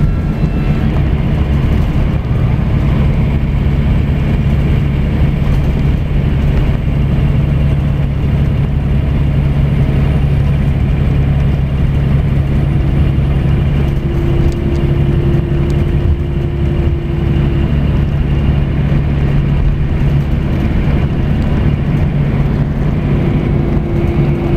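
Scania coach's diesel engine and tyre noise heard from inside the cabin near the rear, a steady low drone while cruising on the expressway. A higher steady hum joins in about halfway through.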